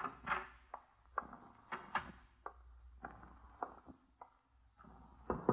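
Radio-drama sound effect of footsteps on a hard floor, about two steps a second, stopping briefly, then a quick series of knocks on a door near the end.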